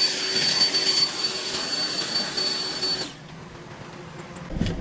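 Cordless leaf blower running in a single burst of about three seconds: a rush of air with a steady high motor whine, starting and cutting off abruptly. Near the end a low rumble begins.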